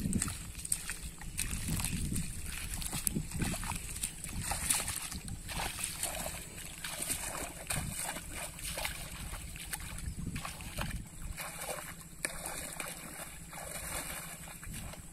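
Irregular splashing and sloshing of shallow water, as of wading and handling a fishing net.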